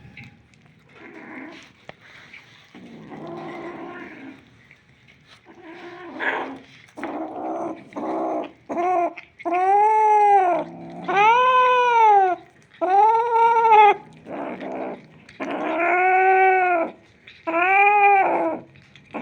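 Domestic cat growling over meat: low rough growls at first, then a run of long, drawn-out yowls about a second each, every one rising and falling in pitch.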